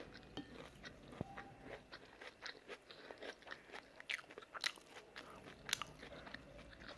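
A person chewing a mouthful of stir-fried udon noodles with tofu and vegetables, heard close up: irregular wet mouth clicks and smacks, with a few louder ones in the second half.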